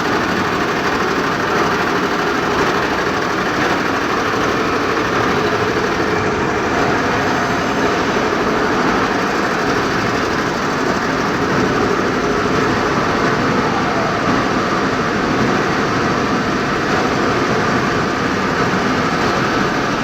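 Industrial MPI machine running with a steady, unbroken mechanical noise.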